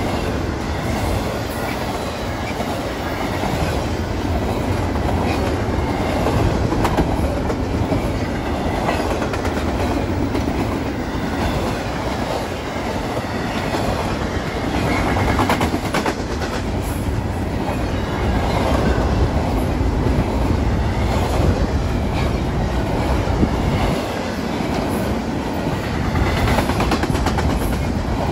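A train rolling past at close range, its wheels clattering over the rails in a steady loud rumble that swells and eases every few seconds.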